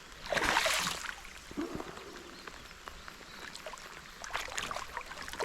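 A brief splash of water about half a second in, followed by faint knocks and drips.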